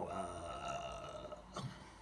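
A man's long, drawn-out, low pitched vocal sound held for about a second and a half, followed by a short second sound near the end.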